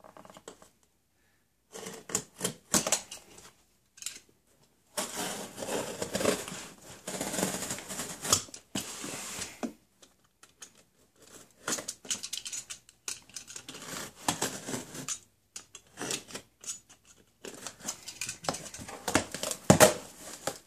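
Box cutter scraping and slicing through packing tape on a cardboard box, in uneven strokes with short pauses and a longer stretch of cutting about five seconds in. Then the cardboard flaps are pulled open, with a sharp knock near the end.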